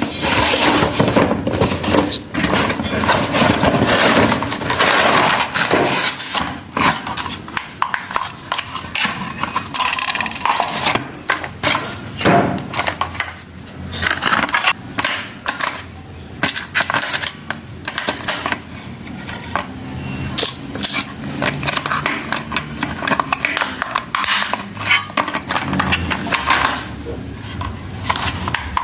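Cardboard and plastic packaging of a remote-control car being handled and opened: continual rustling, crinkling and light clattering, with irregular clicks and knocks.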